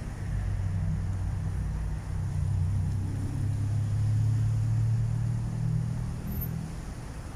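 A motor vehicle's engine running nearby, a steady low hum that grows louder through the middle and fades away near the end.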